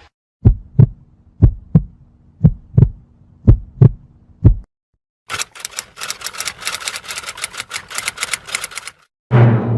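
Heartbeat sound effect: low paired lub-dub thumps about once a second over a faint hum, stopping about halfway through. After a short gap comes a quick run of sharp typing clicks lasting about four seconds.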